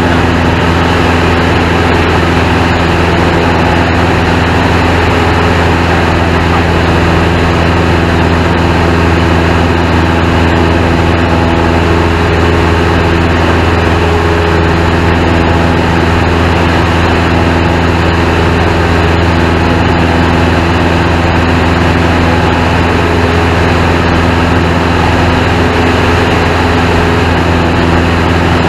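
Single-engine piston airplane's engine and propeller droning steadily in flight, a loud even hum with no change in power.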